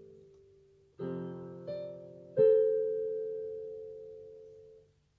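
Slow solo piano background music: a chord about a second in, another note soon after, then a loud chord that rings out and slowly fades.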